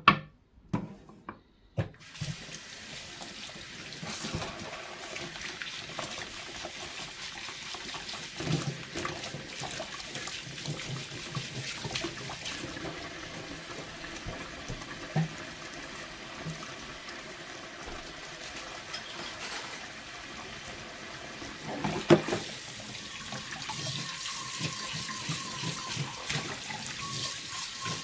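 Kitchen tap running into a sink, turned on about two seconds in after a few knocks. Occasional clinks are heard under the running water, and a sharp knock comes about twenty seconds in.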